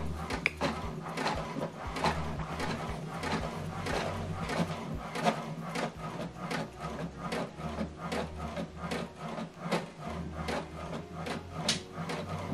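HP DeskJet 2700-series inkjet printer printing a page: the print-head carriage shuttles back and forth in a steady run of short strokes while the motor hums in stretches, feeding the page out a little at a time.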